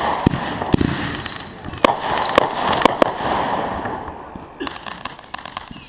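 Consumer fireworks going off: short whistles that fall in pitch, several sharp bangs, and a patch of rapid crackling near the end.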